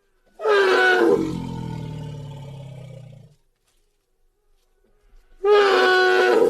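A recorded roar played twice. Each one starts suddenly and loud, high and strained, then drops in pitch and fades over about three seconds before it cuts off. The second roar begins near the end.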